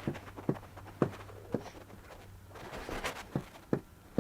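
Light footsteps, about two a second, in two short runs of about four steps with a pause between, over a faint low hum that stops partway through.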